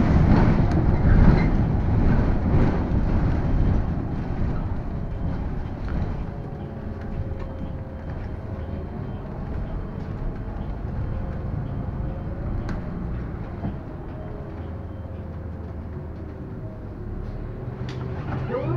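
San Francisco Muni city bus running, its loud low rumble fading away over the first few seconds as it comes to a stop. Then a quieter steady hum with a faint whine that slowly wavers in pitch, from the stopped bus.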